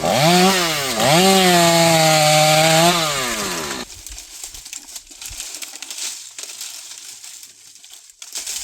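Two-stroke chainsaw running at full throttle, its pitch dipping sharply and recovering twice. It then winds down and cuts off about four seconds in, leaving quieter rustling and crackling.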